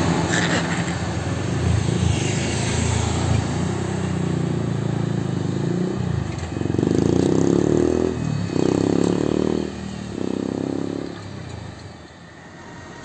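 A bus engine runs as the bus passes close, with a motorcycle going by. Then a bus horn sounds three long notes, each about a second, starting about six seconds in.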